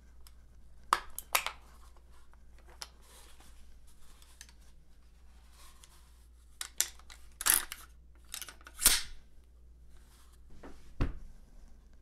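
Gloved hands handling an AR-style rifle with a mounted scope in a foam-lined hard plastic case: a few sharp clicks and knocks, two short rustling scrapes in the middle, and a duller knock near the end.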